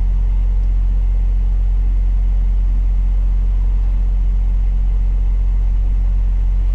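Freightliner Cascadia semi truck's diesel engine running steadily at low revs, a constant low drone heard from inside the cab.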